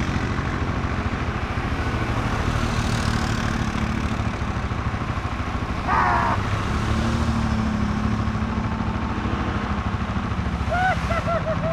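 ATV engines running steadily close by as the machines move through a water crossing. Brief voices call out about six seconds in and again near the end.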